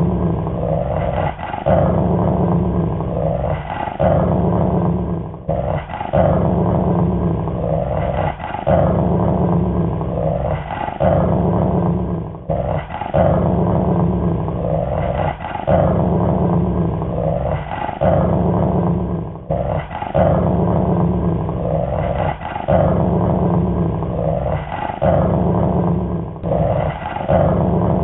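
Deep canine growling as a looped sound effect, coming in rumbling pulses about once a second, with the same stretch repeating about every seven seconds.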